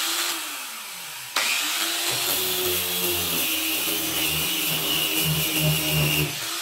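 Angle grinder running slowed through a voltage regulator. It is spinning down after a brief start, then is switched on again about a second and a half in, its motor pitch rising and then holding. A heavier grinding rumble and a thin high whine join in while the disc runs against the metal tabletop.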